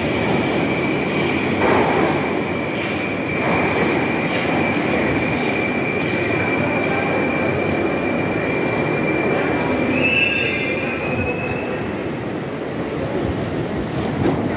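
81-760/761 Oka metro train pulling into the station and stopping, its running noise echoing under the vaulted platform. A steady high-pitched squeal runs over the rumble, rises a little near the end and stops about twelve seconds in.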